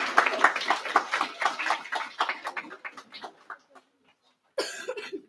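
A hallway crowd clapping, the applause thinning and dying away over the first three seconds or so, then a short burst of voice near the end.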